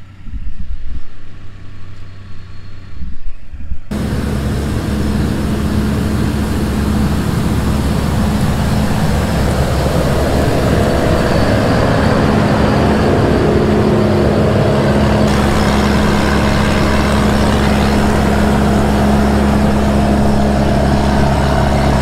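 Almond sweeper's engine and blower fan running steadily, a constant engine hum under a loud rush of blown air, coming in suddenly about four seconds in after a few irregular low thumps.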